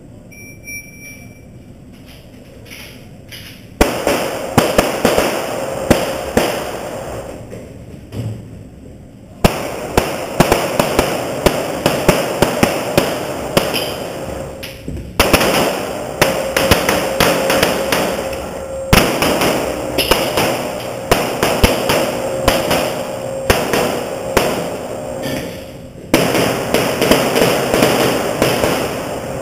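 Rapid strings of 9mm competition pistol shots, sharp cracks echoing off the walls of an indoor range, starting about four seconds in and continuing in bursts.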